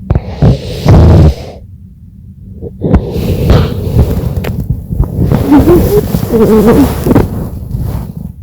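A sleeping person snoring loudly during a nap while ill: two harsh snores in the first second and a half, then a long wheezing breath from about three seconds in, with a wavering whistle partway through.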